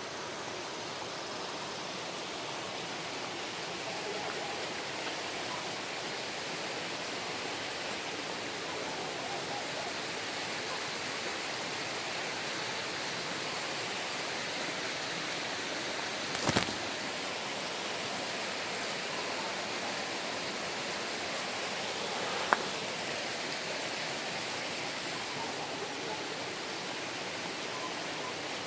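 Mountain stream water rushing steadily, with a sharp click about sixteen seconds in and a shorter tick about six seconds later.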